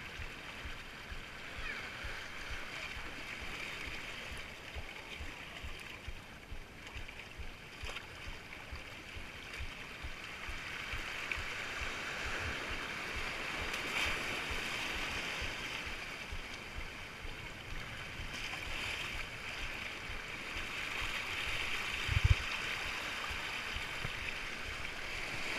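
Small sea waves washing and splashing over rocks and into shallow water, a steady rushing hiss that swells and fades, with scattered low knocks and one loud thump about 22 seconds in.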